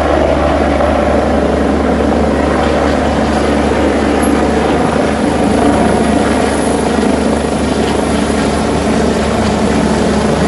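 Medical helicopter taking off and climbing: loud, steady rotor and turbine noise.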